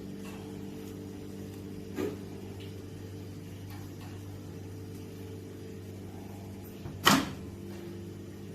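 Sharp R207EK 20-litre microwave oven running with a steady electrical hum, with a light click about two seconds in and a louder clunk about seven seconds in.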